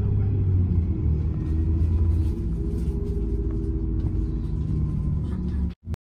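Steady low engine and road rumble of a moving vehicle, heard from inside it, with a deep hum; it cuts off abruptly just before the end.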